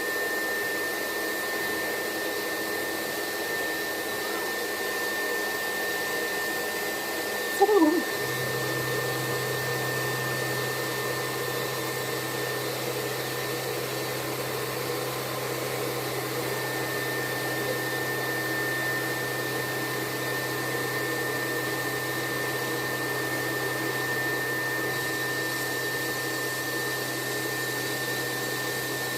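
CNC bangle-cutting machine running: a steady whirring hiss with a constant high whine. About eight seconds in comes a brief, louder sound that falls in pitch, and after it a low steady hum joins in.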